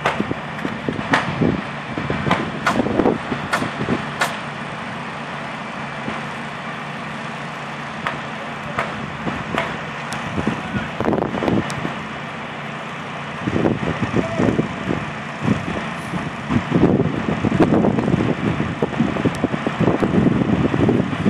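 Steady running of a truck-mounted crane's engine, with scattered sharp knocks of hammering on wooden roof trusses. A louder, rougher noise sets in about two-thirds of the way through.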